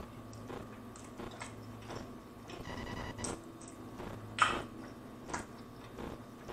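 Close-miked wet chewing of a mouthful of baked mostaccioli pasta, with soft squishing and lip smacks and a sharper smack about four and a half seconds in.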